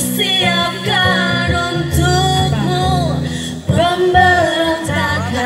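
Live singing with acoustic guitar accompaniment; the voices hold long notes over the guitar.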